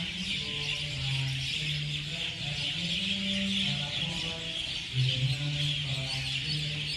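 Buddhist chanting, low voices holding long notes and stepping between a few pitches, over the dense, continuous chirping of a large flock of small birds.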